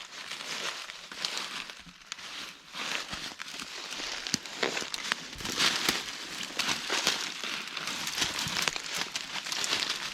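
Footsteps crunching and rustling through dry leaf litter and brush, with irregular crackles and snaps.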